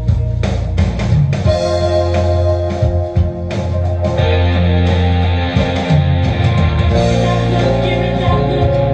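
Guitar-led music played back through a mid-1960s Electro-Voice Coronet two-way loudspeaker during a sound check.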